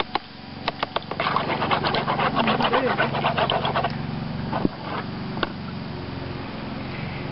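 A metal spoon stirring salt into water in a plastic bowl: a couple of single taps, then a quick run of scraping clinks for about three seconds, with a few more taps later. A steady low hum runs underneath.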